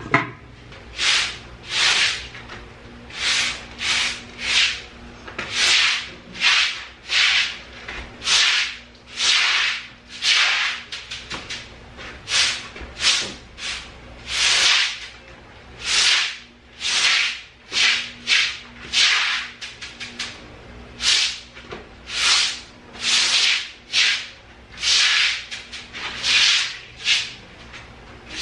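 Broom sweeping a wet concrete floor in short brisk strokes, a scratchy swish about once a second.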